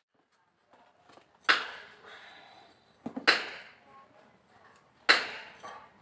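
Three sharp strikes on the blackened steel knife blade, about two seconds apart, each ringing briefly and fading away.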